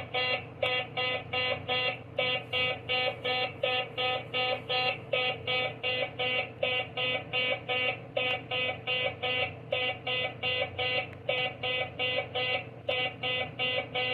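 A toy robot beeping through its speaker in demo mode: a fast string of short electronic beeps, about four a second, in runs separated by brief pauses.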